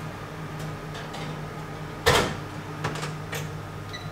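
A built-in convection oven's door is shut with a solid clunk about two seconds in, the loudest sound. It is preceded by lighter knocks of the pan going onto the rack and followed by a short electronic beep near the end as the control panel is pressed. A low steady hum runs underneath.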